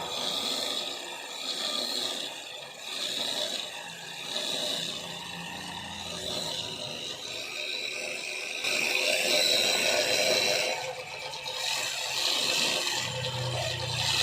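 A small motor whirring with a scraping, rattling noise that swells and fades irregularly.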